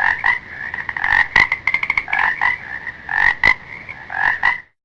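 Frog croaking: a run of repeated croaks, with a quick rattling series in the middle, that stops shortly before the end.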